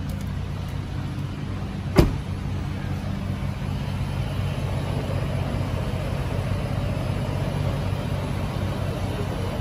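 Ford F-150 Raptor's 3.5-litre twin-turbo V6 idling steadily, with a single sharp knock about two seconds in, as of the truck's door shutting.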